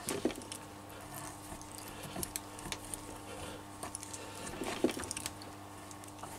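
Hand die cutting a thread on a 3/8-inch EN16T steel stud held in a vice: faint, irregular clicks and scrapes as the die stock is worked round, with a slightly louder cluster of clicks near the end.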